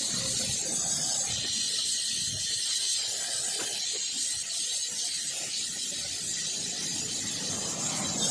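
Gas welding torch flame hissing steadily as it melts filler rod into an aluminium pipe joint.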